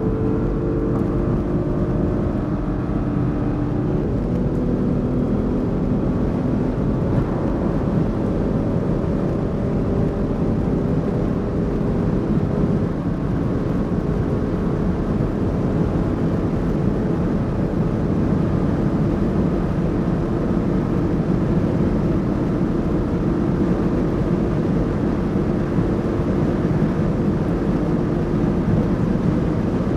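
Audi SQ5's 3.0 TFSI V6 pulling hard at high autobahn speed, under heavy wind and tyre noise. The engine pitch climbs slowly, with a sudden step in pitch about four seconds in.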